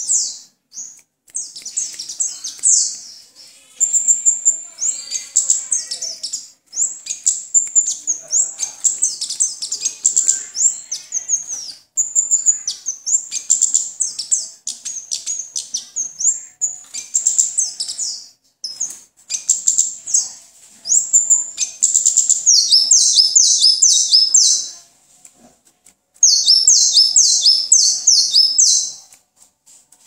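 A caged orange-headed thrush singing: a long, rapid run of varied high, sweet whistled and chirping phrases with barely a break, a short pause about 25 seconds in, and a fast repeated stuttering phrase near the end before it stops.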